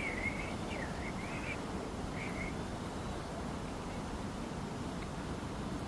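A bird gives a few short wavering whistled calls in the first couple of seconds over steady outdoor background noise.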